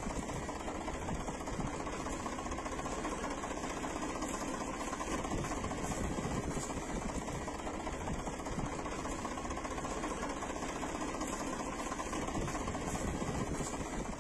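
Engine idling steadily: an even, unbroken running sound with a fast mechanical chatter.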